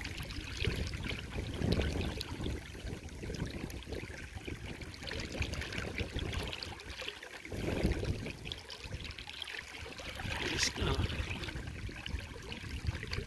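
Shallow river water running and trickling, with wind on the microphone giving an uneven low rumble.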